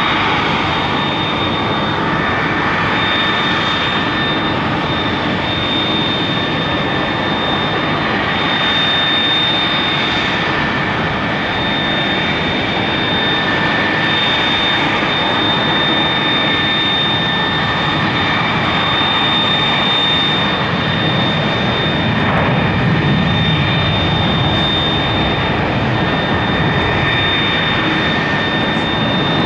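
Steady rush of jet turbine noise from an Airbus A330 airliner on pushback, with a high whine and a lower whine held throughout.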